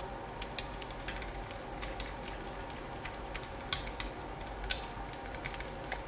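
Irregular faint clicks and ticks of a small screwdriver turning the screw of a plastic pluggable terminal block, with the plastic switch panel being handled.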